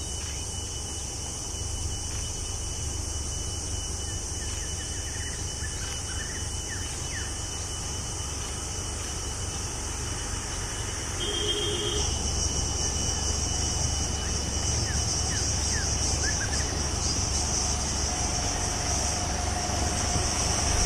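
Motorcycle engine idling, a low steady rumble, under a high steady insect buzz that grows louder about twelve seconds in, with a few short bird chirps.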